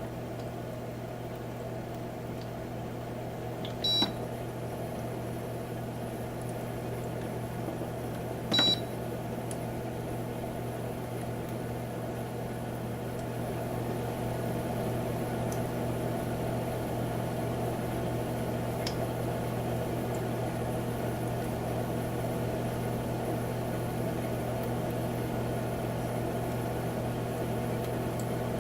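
Humidifier running with a steady hum and hiss, with two short electronic beeps from its controls, about four and nine seconds in. It gets a little louder about halfway through.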